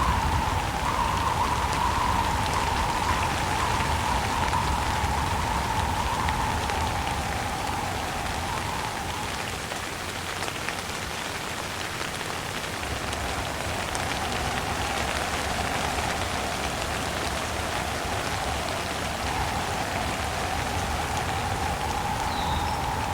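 Steady rain falling, with wind and a whistle-like tone that slowly wavers in pitch.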